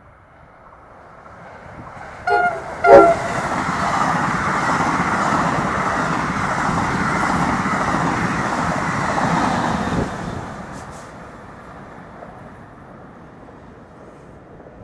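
NJ Transit multilevel commuter train sounds two short blasts of its horn on approach. The train then passes at speed with a loud, steady rush of wheels and cars, which drops away sharply about ten seconds in.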